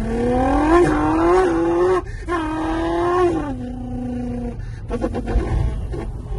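A man imitating a straight-piped Nissan GT-R with his voice: a rev that climbs in pitch for about two seconds and breaks off, then a second held rev that drops and settles into a lower steady note before stopping.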